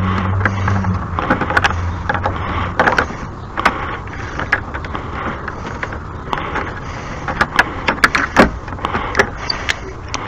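A low motor hum that stops about a second in, followed by scattered clicks and knocks of things being handled.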